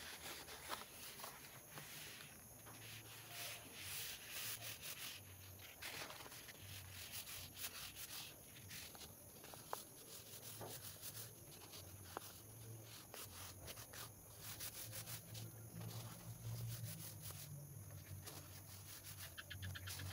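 White cardstock being folded by hand along scored lines and pressed flat at each crease: faint rustling, rubbing and sliding of the card, with small scrapes throughout.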